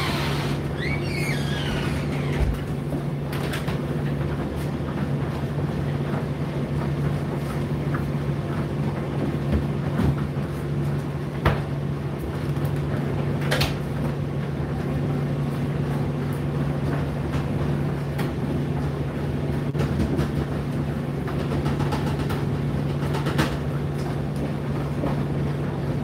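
Indesit IDC8T3 condenser tumble dryer running: a steady low motor hum with the drum turning, and scattered light knocks and clicks through it.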